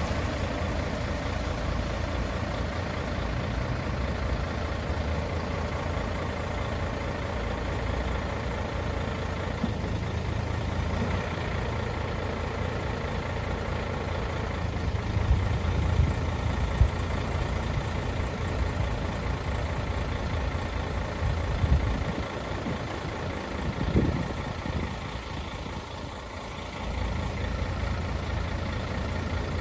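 Mercedes-Benz Actros 2541 truck's diesel engine running steadily while it powers the Palfinger PK44002 loader crane's hydraulics as the boom extends and swings. It eases off for a few seconds late on, with a single sharp knock in that stretch.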